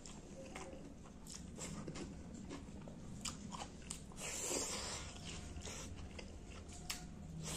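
Close-miked eating of rice and pangas fish curry by hand: wet squishing as fingers mix the rice and curry, then a mouthful taken about four seconds in and chewed, with many short wet mouth clicks and smacks.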